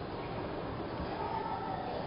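Steady hubbub of a crowded exhibition hall with indistinct voices. A faint, short higher-pitched tone rises over it a little past the middle.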